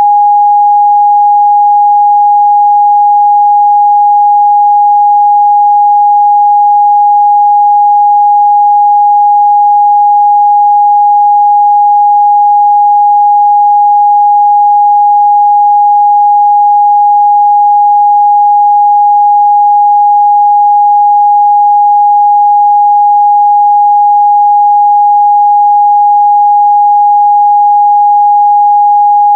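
Steady pure 824 Hz sine-wave test tone, loud and unchanging, with no overtones.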